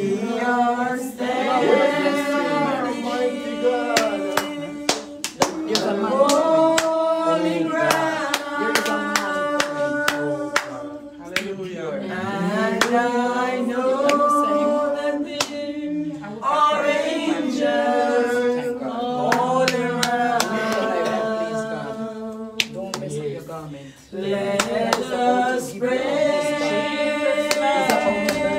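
Voices singing a worship song in a revival service, with hands clapping along in a steady beat. The singing breaks briefly between phrases twice.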